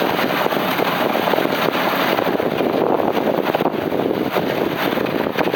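Steady wind noise on the microphone mixed with a dog sled's runners scraping and rattling over river ice.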